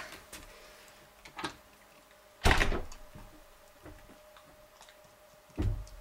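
A house door swinging shut with a single solid thud about two and a half seconds in, after a few faint clicks. Another dull thump comes near the end.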